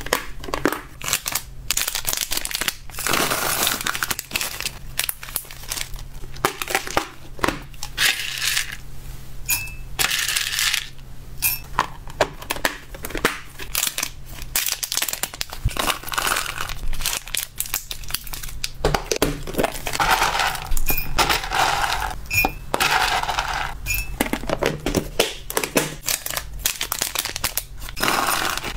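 Hands packing dried hamster treats: plastic food-box lids clicking and snapping shut, small plastic bags crinkling, and dry treat pieces rattling and clinking against a glass jug as they are poured. The result is an irregular run of sharp clicks mixed with stretches of crinkling.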